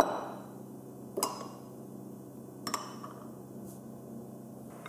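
Ceramic bowls clinking as they are set down on a hard tabletop: one knock right at the start, another a little over a second in and a third near three seconds, each ringing briefly, over a low steady hum.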